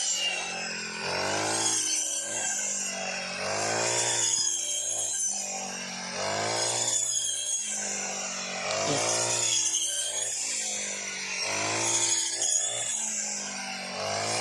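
Two-stroke brush cutter engine running, its pitch rising and falling about every two and a half seconds as the blade is swung through rice stalks and takes load.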